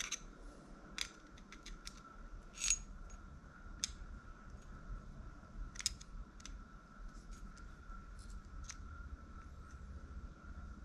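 Light, irregular metallic clicks and taps of a spinning reel's parts being handled and fitted together, with the strongest click a little under three seconds in.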